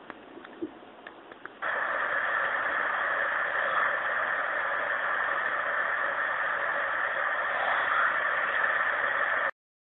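A steady, static-like hiss switches on abruptly about one and a half seconds in, holds level, and cuts off suddenly near the end; faint clicks come before it.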